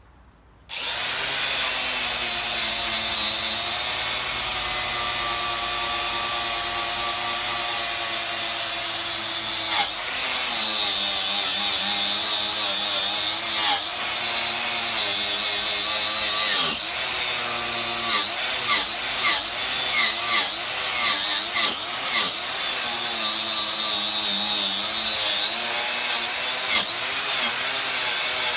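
Power tool spinning a twisted-knot wire brush against the steel edge of a vintage chainsaw guide bar, starting up abruptly just under a second in and then running with a steady whine and scratchy hiss. In the second half its speed sags and recovers several times as the brush bites into the metal.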